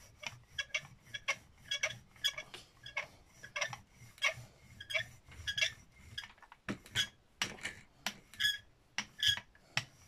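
Rubber brayer (hand ink roller) squeaking as it is rolled back and forth over paper on a gel printing plate: a quick run of short squeaks, two or three a second.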